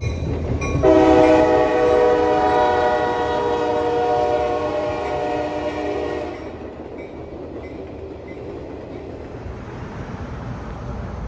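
A locomotive air horn blows one long chord for about five seconds, starting about a second in, over the low rumble of a passing train. After the horn stops, the train's rumble goes on more quietly.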